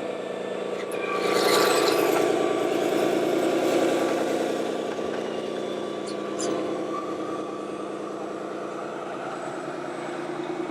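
Scale RC truck's sound module playing a diesel engine running, with a short hiss about a second in.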